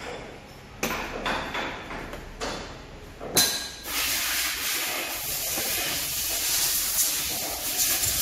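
Metal tools knocking and clinking on machinery in a combine-harvester repair shop, a few separate strikes, then a loud steady hiss, like compressed air or a spray, starts about three and a half seconds in and keeps going.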